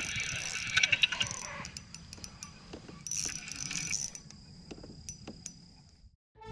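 Fishing reel clicking and whirring as a hooked bass is played. It fades to scattered clicks over the last couple of seconds.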